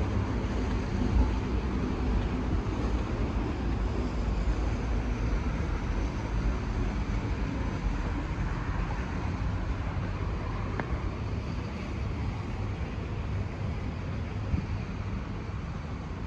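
Steady low outdoor rumble that slowly fades, with one faint click about eleven seconds in.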